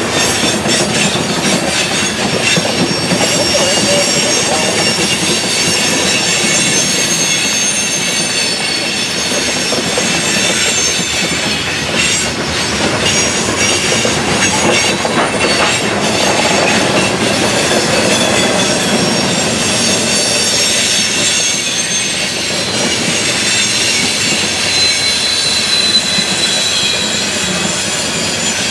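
Freight train of coal hopper cars rolling past: a steady rumble of steel wheels on rail, with clicks over rail joints and a high-pitched wheel squeal throughout.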